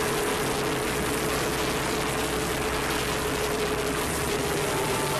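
Steady engine and road noise of a car driving at speed, heard from inside the cabin, with a faint steady hum under it.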